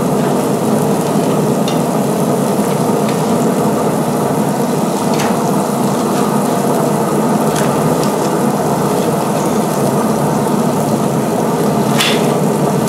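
Steady sizzling of steaks, corn and potatoes cooking on a hot grill. A few sharp clicks of metal tongs cut in as the corn is turned, the loudest near the end.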